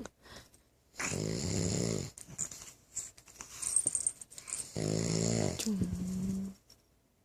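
A man snoring: two long snores, one about a second in and one near five seconds in.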